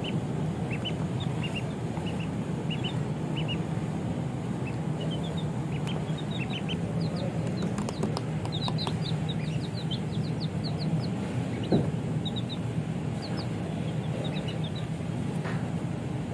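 A brood of chicks and ducklings peeping, with many short, high peeps overlapping, busiest about halfway through, over a steady low hum.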